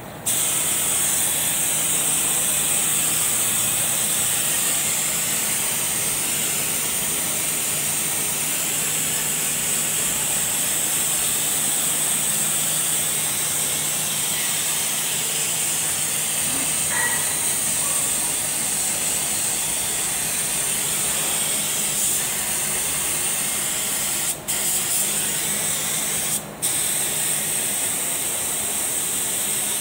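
Paint spray gun hissing steadily as blue paint is sprayed onto a tractor chassis. Twice near the end the hiss cuts out for a moment and resumes.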